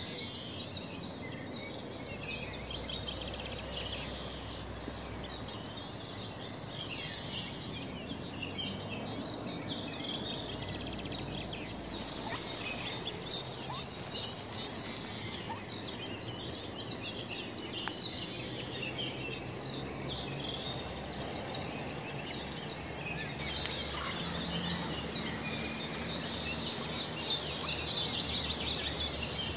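Wild birdsong: many small birds chirping and calling over a steady outdoor hiss. Near the end, a run of sharp repeated notes comes about three a second.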